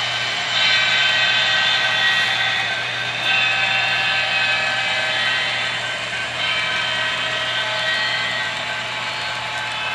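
Model diesel locomotives' onboard engine sound running as the trains pass: a steady whining engine noise whose higher tones grow stronger about half a second in, again after about three seconds and again after about six, over a low steady hum.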